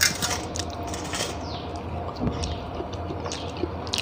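Hand-eating sounds: chewing and lip smacks, with soft clicks of fingers on a steel plate. A couple of faint, falling high chirps sound in the background.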